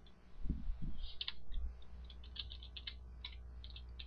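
Computer keyboard being typed on: a quick, uneven run of key clicks as a username is entered, with two soft low thumps about half a second in.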